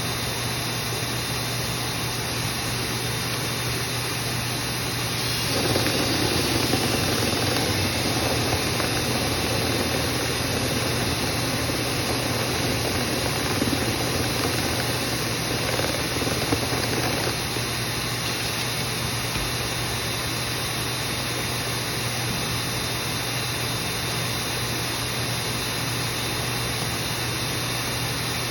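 Dryer vent cleaning equipment running with a steady motor noise. About five seconds in, a louder, rougher rushing sound joins it for about twelve seconds, then drops back to the steady run.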